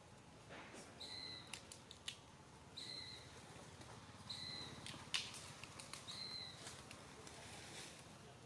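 An animal giving a short, high, steady-pitched call, repeated four times about every one and a half to two seconds, with a few sharp clicks between the calls.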